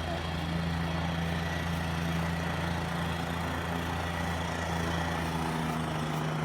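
A steady low mechanical drone, even and unchanging, with no speech over it.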